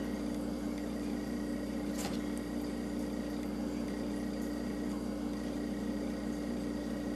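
A steady machine hum with a few fixed tones, and a single short click about two seconds in.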